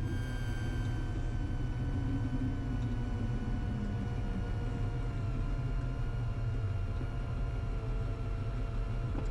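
Cirrus SR20 G6's four-cylinder piston engine and propeller running at low power as the plane taxis off the runway after landing: a steady drone whose tones sink slightly in pitch over the first few seconds, then hold.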